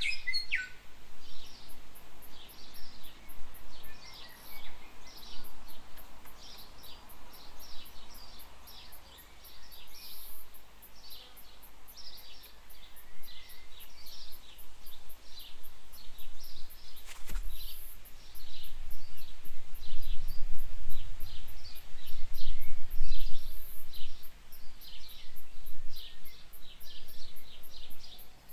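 Outdoor bush chorus: short high chirps repeating two or three a second over a steady, fast, very high ticking. A single sharp knock comes a little past halfway, followed by several seconds of low rumble.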